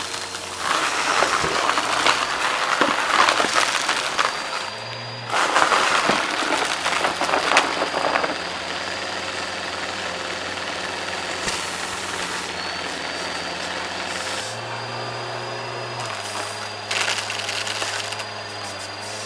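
Vacuum cleaner running steadily with a high whine, sucking up a crunchy mess-test mix: dense crackling and crunching in two long stretches in the first half and a shorter one near the end.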